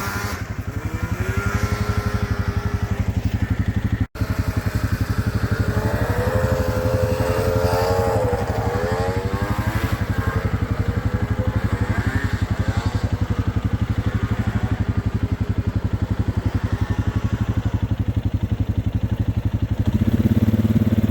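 A steady low engine drone close by, with the whine of snowmobile engines rising and falling in pitch as the sleds rev through corners, most clearly twice in the first half.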